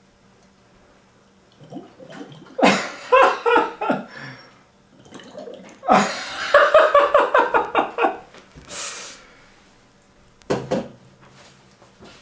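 A man laughing to himself in two long, pulsing fits a second or two apart, followed by a short vocal burst near the end.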